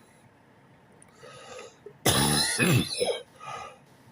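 A man coughing and clearing his throat: one loud, rough cough about two seconds in, then a quieter one just after.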